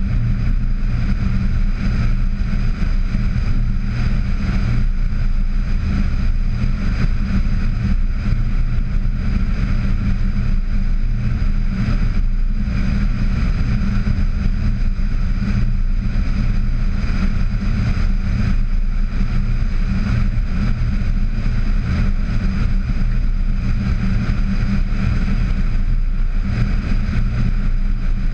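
VW Tiguan driving steadily along an unpaved road, heard from a camera suction-mounted on its hood: a loud, even low rumble of wind and road noise with the car's running underneath, unchanging throughout.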